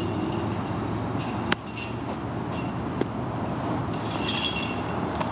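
A baseball smacks into a leather glove once, a sharp pop about one and a half seconds in, over a steady outdoor background hiss. A light metallic jingling comes near the end.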